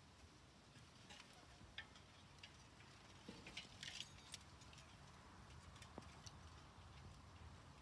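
Near silence: faint outdoor background with scattered light ticks and clicks, a small cluster of them a little past the middle.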